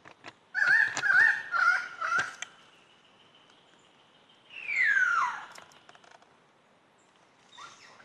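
Superb lyrebird song: a run of loud warbling notes with sharp clicks over the first couple of seconds, then a single long whistle sliding steeply down in pitch about five seconds in, and a short call near the end.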